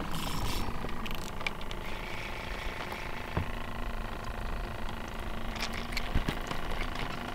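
Steady hum aboard a fishing boat, with scattered clicks and knocks from handling the rod and fish as a crappie is reeled in and swung aboard. A sharper knock comes about six seconds in.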